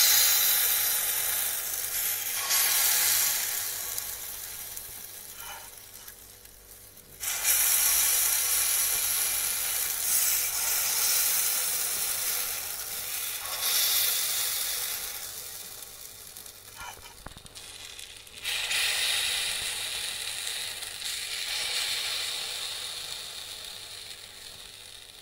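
Rice-flour batter poured by the ladleful into the hot, oiled cavities of a pitha mould pan. Each pour sets off a sharp sizzle that dies down over a few seconds, about six times in a row.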